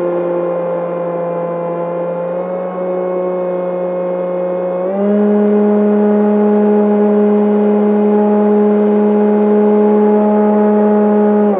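Electric motor and propeller of an E-flite Opterra flying wing, heard from its onboard camera: a steady whine that steps up in pitch and gets louder about five seconds in as the throttle is advanced, then holds.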